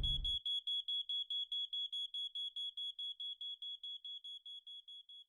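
Smoke alarm sounding rapid high-pitched beeps, about five a second, slowly fading away. A low rumble cuts off just after the start.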